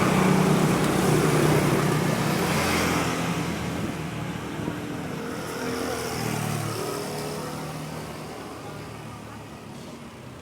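A motor vehicle engine running, loudest at first and fading away gradually.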